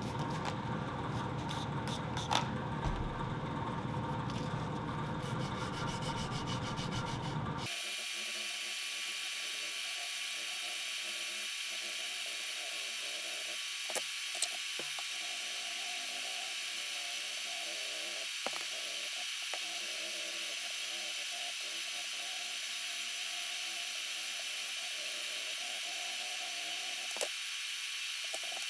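A power tool running. A rough, noisy sound for about the first eight seconds cuts off abruptly into a steadier high whine, with a few faint clicks.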